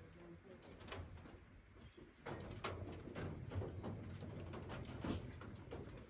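Birds chirping, with a few short, high, falling chirps in the second half, over soft knocks and scuffs from rabbits moving about a wooden hutch with a wire-mesh floor.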